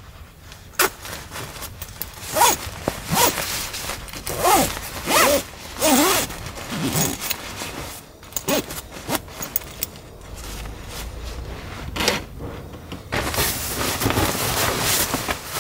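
Objects being handled at close range: a string of scrapes, clicks and rustles with a few short squeaky sweeps, easing off in the middle and turning to steady rustling near the end.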